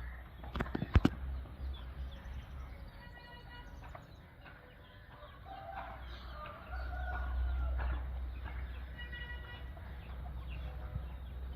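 Chickens calling, with a rooster crowing twice, a few seconds apart. Low wind rumble comes in about halfway through.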